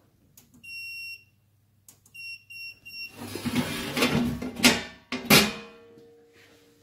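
Coin-operated toilet turnstile's electronic buzzer beeping: one long beep, then three short beeps, as the unit is set up. Then a rattle and two sharp metallic clunks as a hand handles the stainless-steel turnstile.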